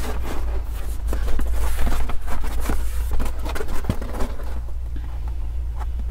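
Rustling, scraping and clicking of an insulating foam mat being handled and fitted against a car's side window, over a steady low hum.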